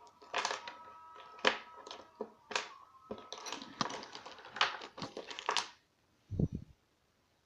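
Irregular metal clicks and scrapes of a lock pick and tension tool working the pins of a challenge lock, with a dull knock about six seconds in.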